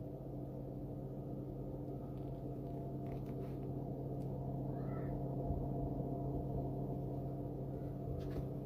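Steady, even hum of a small electric motor running in a radio-controlled construction model, with a few faint clicks and a short chirp about halfway through.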